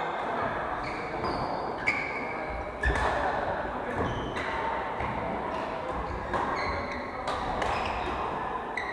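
Badminton rackets hitting a shuttlecock in a rally, about a dozen sharp knocks at uneven intervals, many followed by a brief high ringing squeak, over a murmur of voices in a large hall.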